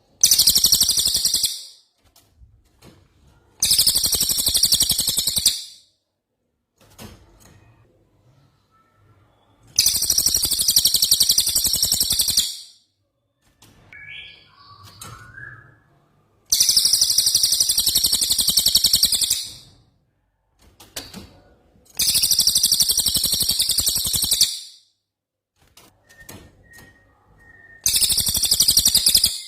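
Songbird masteran recording of a 'rol tembak' phrase: a very fast, high rattling trill that runs for two to three seconds and repeats about every six seconds, six times, with faint softer chirps in the gaps.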